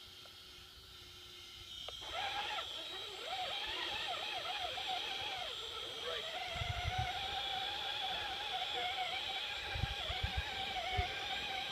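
Small electric motors of a radio-controlled scale crawler whining under load, starting about two seconds in. The pitch wavers up and down as the throttle changes and the truck strains stuck in the mud, with a few dull low bumps later on.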